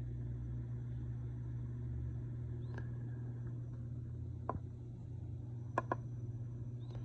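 Steady low hum of running aquarium equipment such as a pump or filter, with a few faint sharp clicks, two of them close together about six seconds in.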